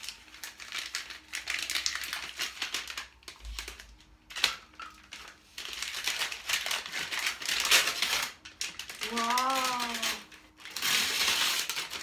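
Brown kraft paper wrapping crinkled and torn off a small wooden gift by hand, in long rustling stretches with a sharp snap about four seconds in. A short vocal sound, rising then falling in pitch, comes about nine seconds in.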